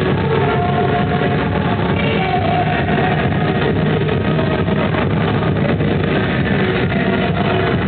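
Loud music played for an aqua-gym exercise class.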